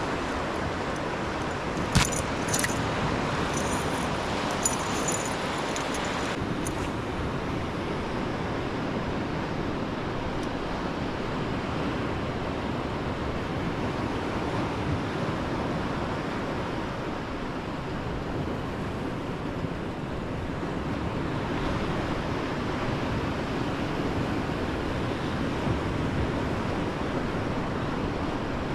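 Steady wind and water noise, with a sharp knock about two seconds in followed by a few seconds of light metallic jingling.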